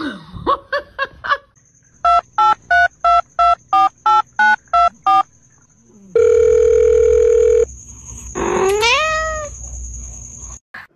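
Telephone keypad tones: nine beeps at about three a second, followed by a steady dial tone lasting about a second and a half. Near the end a single drawn-out call rises and then falls in pitch, and a few short pitched calls come at the very start.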